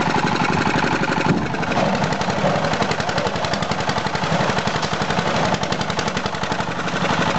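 Small stationary diesel engine running steadily with a rapid, even chugging, powering an ice crusher that feeds ice down a chute.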